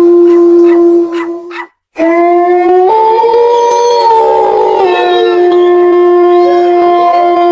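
Dogs howling in long, drawn-out held notes, broken by a short silence about two seconds in; the pitch steps up about three seconds in and falls back near five seconds.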